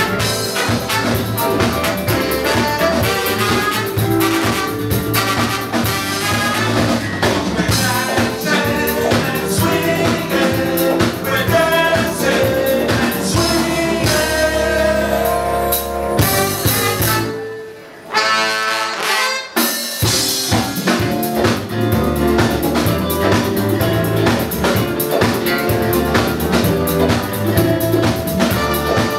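Live jazz-funk band playing: trombone, trumpet and saxophone over electric guitar, bass, drum kit and keyboards, with several voices singing together. About two-thirds of the way through, the band stops for a beat and then crashes back in.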